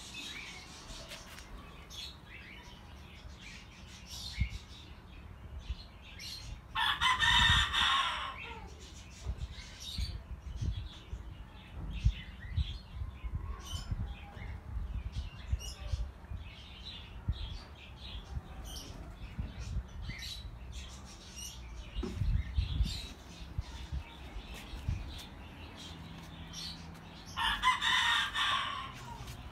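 A rooster crowing twice, each crow about a second and a half long, the second near the end. Light rustling and knocks run between the crows.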